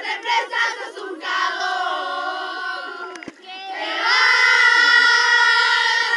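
A group of young, high voices shouting and chanting together: short shouts, then a sung phrase, then one long loud note held in unison from about four seconds in.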